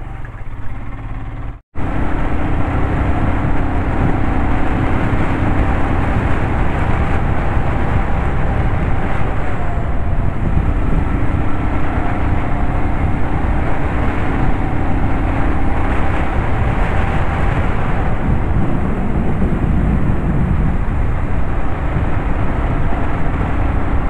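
A motorcycle being ridden at steady speed: loud wind rush over the microphone and road noise, with a faint engine hum whose pitch drifts slightly now and then. About two seconds in, the sound cuts out for an instant and comes back louder.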